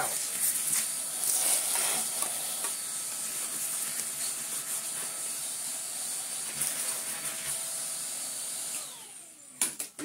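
Cordless vacuum cleaner running steadily with a strong high hiss as it sucks the dirt out of a robot vacuum's dust bin. Near the end it is switched off and its motor winds down in a falling whine, followed by a couple of sharp clicks.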